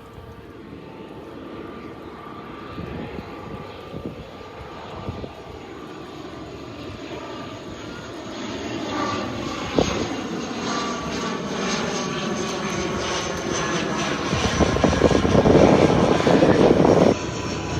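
Airliner engines on approach to land, a steady noise with a thin whine that grows louder as the aircraft nears and drops off abruptly near the end.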